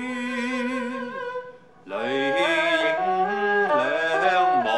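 Cantonese song sung in long, drawn-out notes with a slow waver in pitch; the voice breaks off briefly about a second and a half in, then the melody resumes with held, gliding notes.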